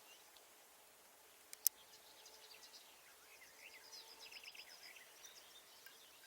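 Faint birdsong in the open countryside: several small birds chirping and trilling, busiest in the middle, with two sharp clicks about a second and a half in.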